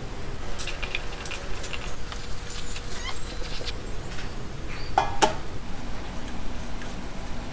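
Kitchen handling sounds: scattered light clinks and taps of utensils and dishes, with one louder ringing clank about five seconds in.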